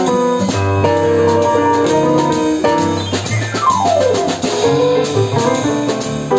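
Jazz piano trio playing: Yamaha digital stage piano chords over plucked upright double bass and drum kit. About three seconds in the piano plays a quick descending run.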